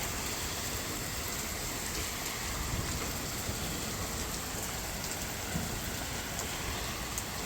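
Steady rain falling in a thunderstorm, an even hiss with scattered small taps of drops.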